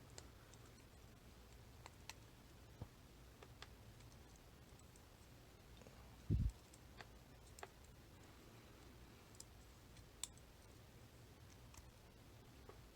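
Faint, scattered metallic clicks of small lock parts being worked by hand as the sliders are prised out of an ASSA Desmo 8 cam lock core, with one dull low thump about six seconds in.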